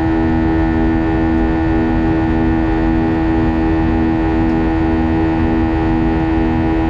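Airbus A320 jet engines running steadily, heard inside the passenger cabin as a droning hum with several steady tones. One lower tone swells and fades about every two-thirds of a second.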